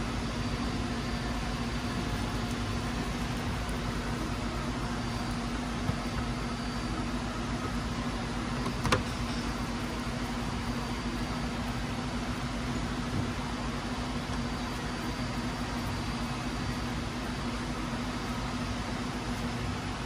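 Steady mechanical hum with a constant low tone, broken by two short clicks, the sharper one about nine seconds in.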